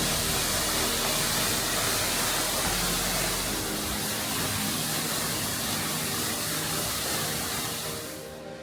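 Waterfall rushing as a steady, loud, hissing roar of falling water, fading out near the end.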